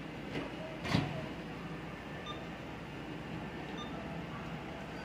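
Steady background hum with a light click, then a sharper knock about a second in.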